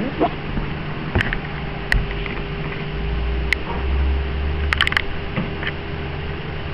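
Handling noise on a handheld camera's microphone: a few sharp clicks and knocks, one quick run of four, over a low rumble of wind on the microphone and a faint steady hum.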